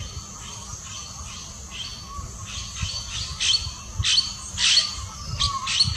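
Spot-breasted woodpecker giving a series of short, harsh calls that grow louder and come faster, about two to three a second, from the middle on.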